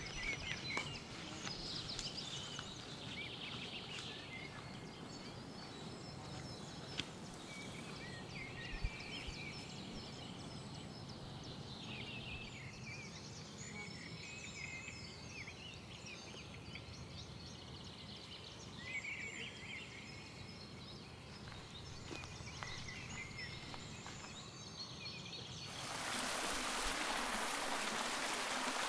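Woodland birds chirping and singing in short, quick phrases over a low steady hum. About 26 s in, this gives way abruptly to the loud, even rush of a small cascade of water running over rocks.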